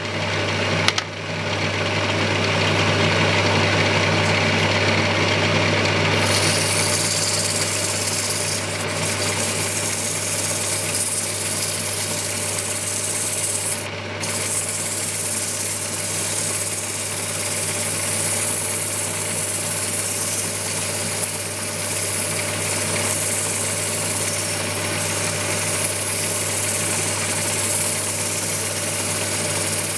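Electric motor of a small wood lathe running steadily with a low hum while a bird-cherry bowl spins on it. From about six seconds in, a hiss of a hand-held tool rubbing on the turning wood joins the hum, breaking off briefly near the middle.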